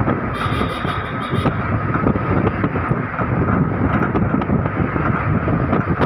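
A vehicle's engine and road noise while driving, with wind buffeting the microphone.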